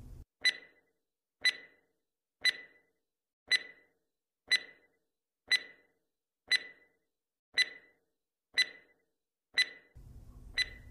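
Countdown timer sound effect: a short, sharp clock-like tick with a brief ring, once a second, eleven times.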